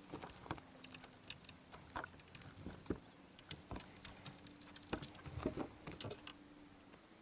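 Scattered light clicks and taps of handling a freshly caught smallmouth bass and working the topwater lure's hooks free, stopping about six seconds in, over a faint steady hum.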